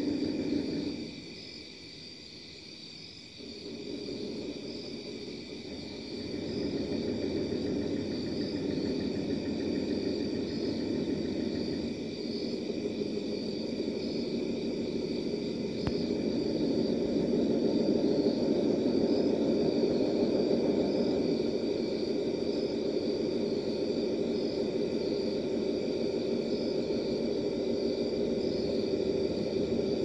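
A low, steady droning hum with faint high steady tones above it. It drops away about a second in, comes back after about three seconds, and grows louder after about sixteen seconds.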